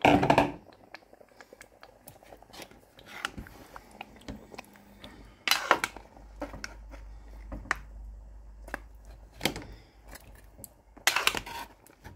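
Kitchen handling sounds: a pot, lid and utensils clattering in a run of separate knocks and clinks. The loudest clatter comes right at the start, with more around the middle and near the end.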